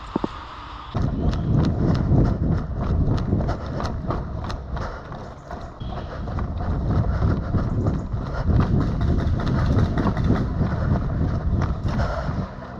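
Running footsteps with gear knocking against a body-worn camera: irregular thuds and rumbling with sharp clicks, starting suddenly about a second in.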